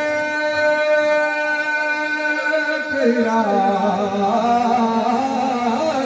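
A man singing a noha, a Shia mourning elegy. He holds one long drawn-out note for about three seconds, then drops lower into a wavering, ornamented line.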